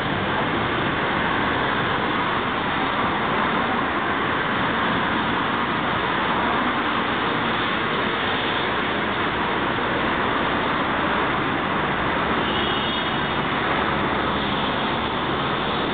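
Steady city street noise: road traffic passing on a busy boulevard.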